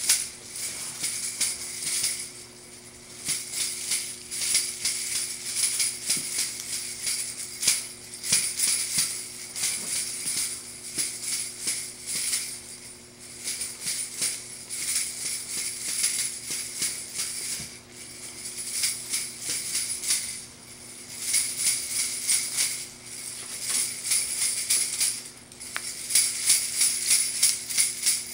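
Christmas tree ornaments made for shaking, shaken by hand over and over in a quick rhythm as jingling 'music', stopping briefly a few times.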